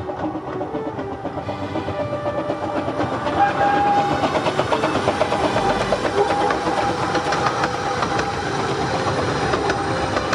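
A Ravenglass and Eskdale Railway miniature train running close by: a rhythmic clatter that grows louder over the first few seconds and then holds steady, with a short high note about three and a half seconds in.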